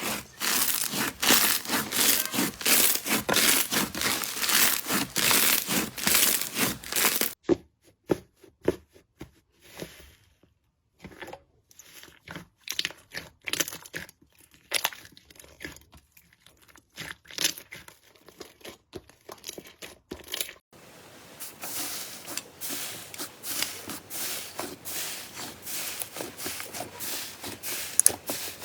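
Slime being pressed and poked by hand, giving dense crackling and popping. The crackles thin out to scattered separate clicks about seven seconds in, then turn dense again at about twenty-one seconds.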